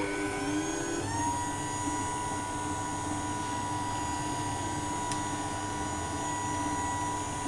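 Boss RD11 roller door opener's electric motor and gearbox running, turning its drive wheel. A steady whine with several tones that steps up slightly in pitch about a second in, then holds.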